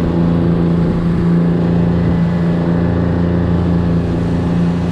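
Sportfishing boat's engine running at a steady speed, a constant low drone with a hum.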